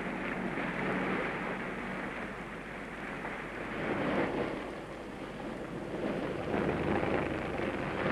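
Steady rushing noise of boat engines and sea water, swelling louder about four seconds in and again near the end.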